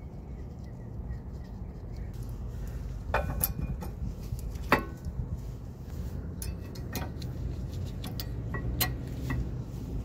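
Light metallic clicks and clinks of new brake pads being fitted into the spring clips of a rear brake caliper bracket, a few separate clicks over a steady low hum.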